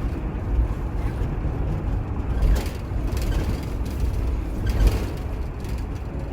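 Camper van driving at expressway speed, heard from inside the cab: a steady low road-and-engine rumble, with a few short knocks or rattles, the clearest about two and a half seconds in and near five seconds.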